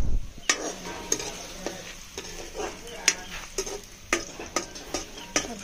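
Chopped onions sizzling in oil in a steel kadhai, with a steel spoon stirring them and scraping and knocking against the pan roughly every half second.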